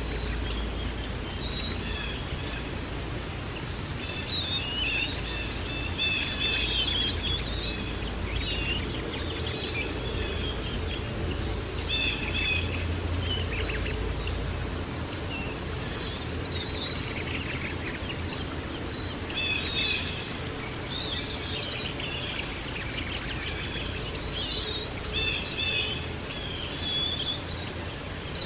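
Small songbirds chirping and trilling busily, several at once, over a steady low background rumble; the sound starts abruptly.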